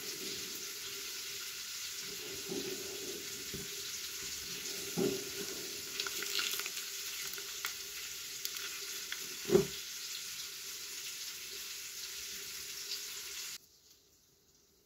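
A steady hiss that cuts off suddenly near the end, with a few soft knocks from a spoon spreading a creamy spread over bread slices. The loudest knock comes a little past halfway.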